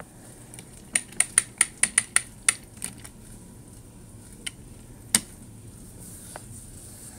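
Sharp clicks and taps of a plastic Trackmaster Thomas toy engine being handled and set down on a wooden table: a quick run of about eight clicks, then a single louder knock about five seconds in.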